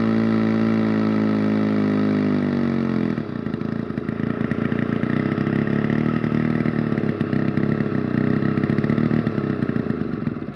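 Over 90-year-old Rinco chainsaw engine running loudly with a steady note, then about three seconds in the note drops a little and turns rough and uneven.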